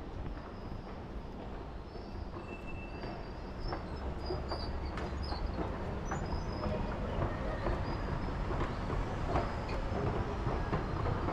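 Kelana Jaya line LRT train running through the station, growing steadily louder, with scattered clicks and a few brief high wheel squeals.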